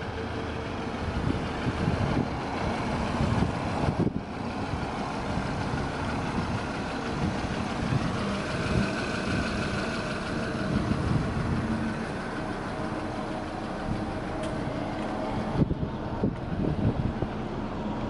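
A vehicle engine running steadily, with wind buffeting the microphone in uneven low gusts. The sound breaks off sharply and resumes about four seconds in and again near the end.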